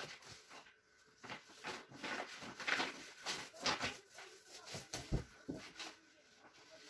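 Paper wallpaper strips rustling and crinkling as they are handled on the floor, in a string of short rustles and scrapes that are loudest in the middle.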